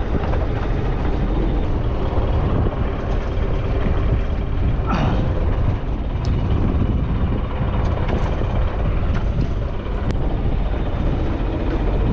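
Fishing boat's engine running steadily, a constant low rumble with wind and sea noise over it.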